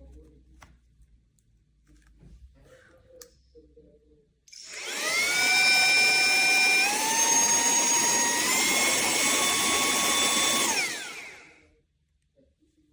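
Lyiazsoy cordless mini vacuum and air duster's high-speed motor switched on a few seconds in: a whine with a rush of air that rises to speed, steps up in pitch twice, then winds down with falling pitch and stops. Faint handling clicks come before it.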